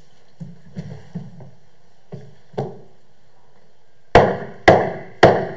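A few light knocks, then three loud, sharp bangs about half a second apart near the end, each ringing out briefly in the hall.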